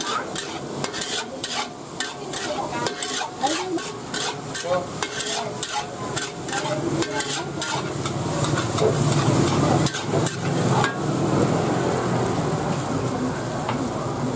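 Metal spatula scraping and clanking rapidly against a steel wok as fried rice is stir-fried, with frying sizzle underneath. About eleven seconds in the clanks stop and only a steady sizzle remains.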